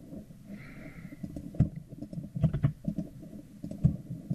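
Computer keyboard keys and mouse buttons clicking in irregular, scattered presses.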